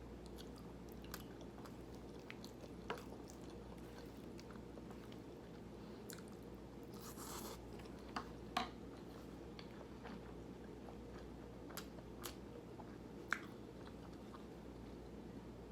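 A person chewing and eating close to the microphone, with scattered wet mouth clicks and smacks and a short noisier patch about seven seconds in, over a low steady hum.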